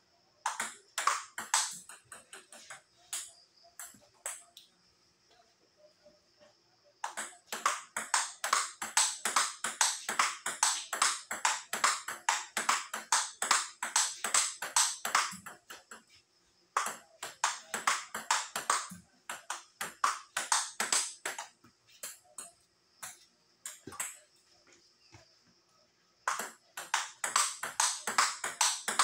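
Table tennis ball clicking off the paddles and the tabletop in fast drill play. Quick runs of several hits a second alternate with stretches of only a few scattered bounces.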